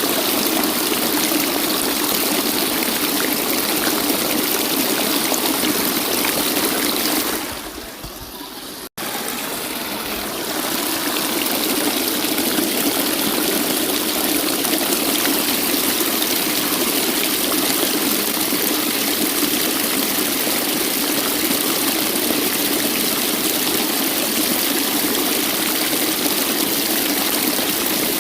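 Waterfall: steady rushing water noise with a strong band low in pitch. About seven and a half seconds in it dips in level, cuts out for an instant near nine seconds, then returns and runs on evenly.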